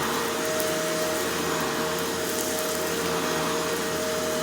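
Shark Rotator Powered Lift-Away NV650 upright vacuum running steadily while vacuuming, its replacement motor giving a constant rushing hum with two held tones.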